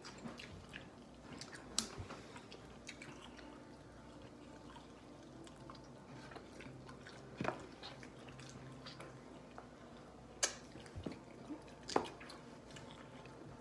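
Faint chewing of people eating chicken wings, with a few sharp clicks scattered through.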